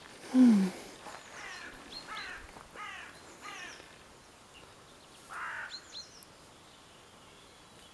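Birds calling in woodland: a quick run of about five short, downward-sliding calls, then a single harsh caw about five seconds in, with faint high chirps from small birds. About half a second in there is a short, loud, low sound that falls in pitch.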